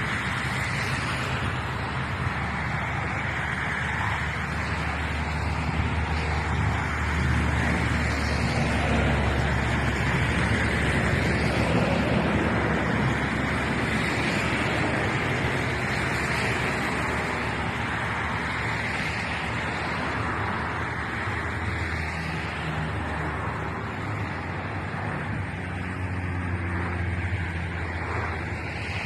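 Jet airliner passing low on its landing approach: a steady engine roar with a deep rumble that swells for several seconds and then slowly fades.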